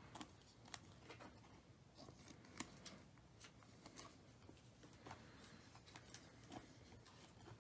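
Faint, irregular ticks and slides of glossy Panini Prizm basketball cards being handled, flipped through and set down onto stacks on a table, over near silence.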